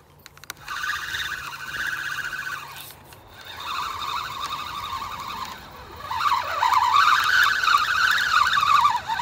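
Spinning reel being cranked, its gears giving a whine that rises and falls with the cranking speed, with two short breaks and loudest in the last few seconds as line is wound in, likely with a small striped bass on.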